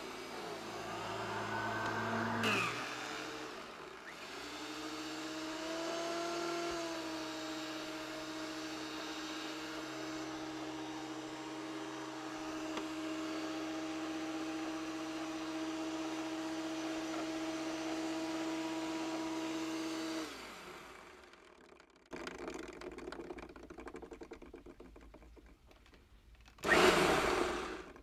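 Hoover Junior U1220 upright vacuum cleaner's 400 W motor switched on. It whines up in pitch, sags briefly, picks up again and runs with a steady hum for about fifteen seconds, then winds down. The motor will not run properly, which the owner puts down to the fan in the motor. A brief loud handling noise comes near the end.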